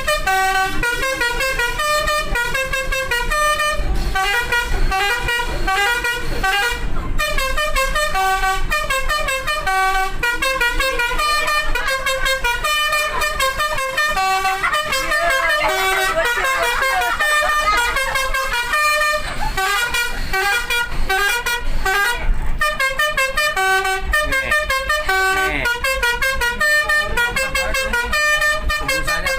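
Telolet multi-tone bus horn playing a melody, its notes stepping up and down in a tune that repeats over and over without a break.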